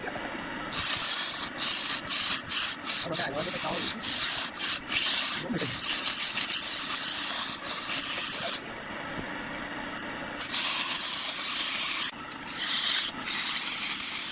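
Wood being worked against a tool or abrasive on a spinning wood lathe: a rasping hiss that starts and stops in many short strokes, with a longer pause about nine seconds in.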